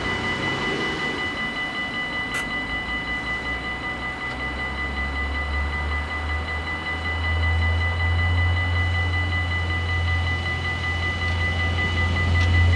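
Level-crossing warning bells ringing steadily while a Stadler GTW diesel railcar approaches, its low engine drone growing louder from about halfway through.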